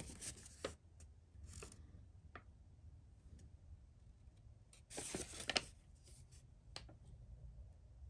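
Faint handling noises: a few light clicks and rustles, with a short louder rustle about five seconds in.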